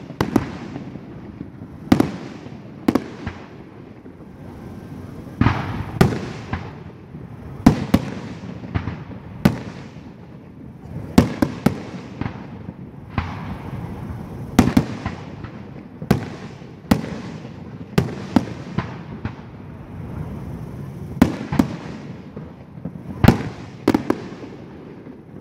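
Aerial firework shells bursting overhead: about two dozen sharp bangs at irregular intervals, roughly one a second and sometimes two in quick succession, each followed by a fading echo.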